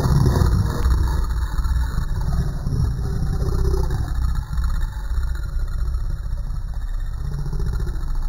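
Small dog growling, played back in slow motion so the growl is dropped to one long, low rumble that sounds huge.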